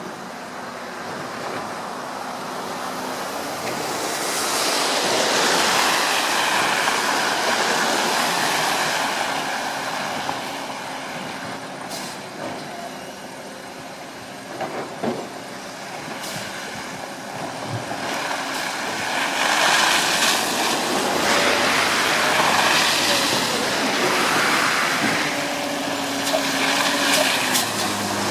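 Garbage truck engine running, rising and falling in two long swells, with a few short knocks in between.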